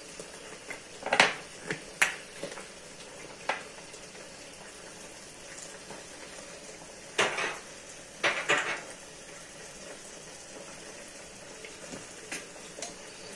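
Scattered clinks and knocks of kitchen utensils and containers against a cooking pot, about eight in all with a cluster in the middle, over a faint steady hiss.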